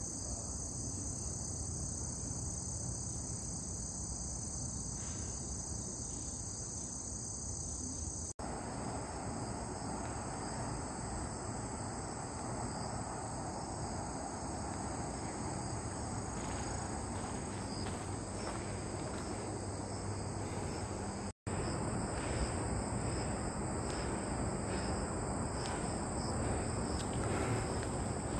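Insects singing in a steady, unbroken high drone, with the soft scuff of footsteps and the rustle of a hand-held recorder beneath it. The sound drops out briefly twice.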